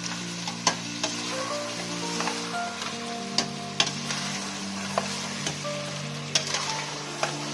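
Lamb pieces sizzling in masala in a stainless steel pot while being stirred and turned with a metal spatula, which knocks sharply against the pot several times. This is the bhuna stage, the meat dry-frying in its spice paste.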